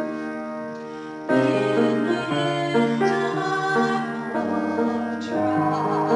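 Solo piano music: a held chord dies away, then a fresh chord is struck about a second in and the playing moves on through slow, sustained chords.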